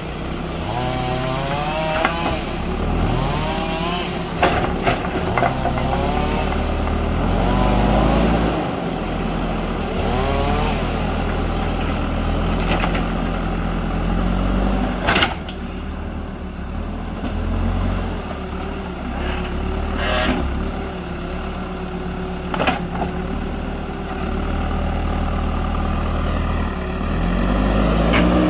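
JCB backhoe loader's diesel engine running under load, its pitch rising and falling repeatedly as the hydraulics work. Sharp knocks come at irregular intervals, the loudest about halfway through.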